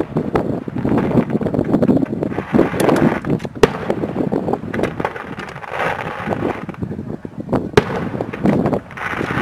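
Fireworks display: a dense, rapid crackle of bangs from rising comets and bursting aerial shells, with a few sharper, louder reports about three and a half seconds in and near eight seconds.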